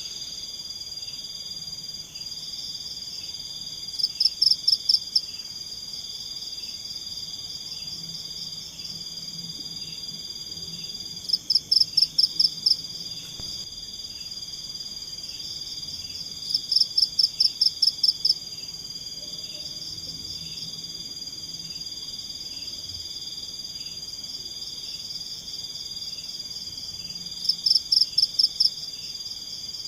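Night-time forest chorus of insects: a steady high-pitched trill with a softer pulsing call beneath it, broken four times by loud bursts of rapid pulsed calls, each about a second long.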